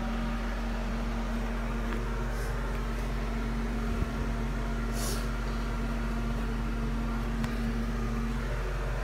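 Steady hum of a small electric fan motor, holding one constant low tone that cuts out shortly before the end. A brief soft rustle comes about five seconds in.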